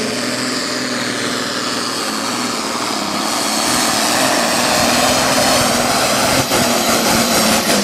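Pulling tractor's diesel engine running flat out while hauling a weight-transfer sled, growing a little louder midway through the run. Near the end the sound turns choppy as the pull winds down.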